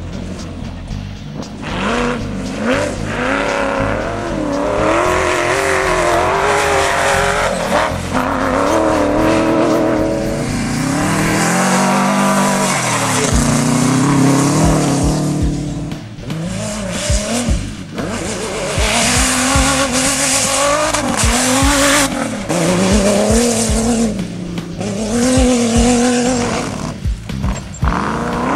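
Off-road race buggy engines running hard at full throttle, the pitch climbing and dropping again and again as the drivers rev through the gears and back off for turns.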